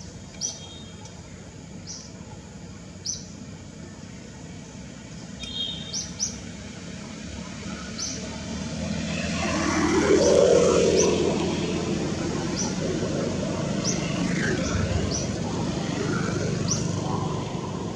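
A bird calling in short, high chirps about once a second. About eight seconds in, the noise of a passing vehicle swells up, becomes loudest a couple of seconds later, and stays loud.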